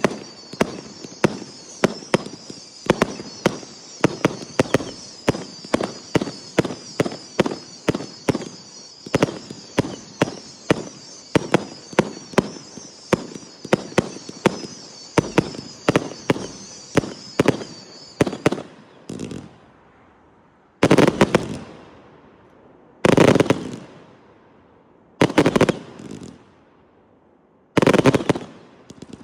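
Fireworks firing in a quick volley, about two launches or bangs a second over a continuous high hissing, for roughly eighteen seconds. The volley stops, and after a short pause four louder bursts, each about a second long, go off about two seconds apart.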